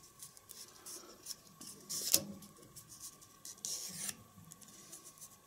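Faint rustling and rubbing of a small paper template being folded and creased by hand, with a sharper crinkle about two seconds in and a longer rustle around four seconds in.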